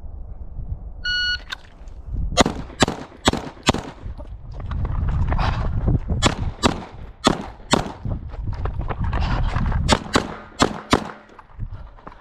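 A shot timer gives one short beep about a second in, then a carry-optics pistol fires about fifteen shots. They come as quick pairs and short strings, broken by brief pauses.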